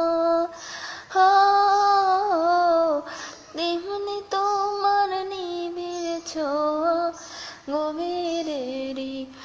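A woman singing a Bengali film song solo, in long held notes with wavering turns and short breaks for breath between phrases.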